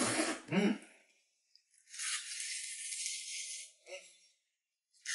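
A short vocal sound, then about two seconds of dry, rattling hiss like something being shaken.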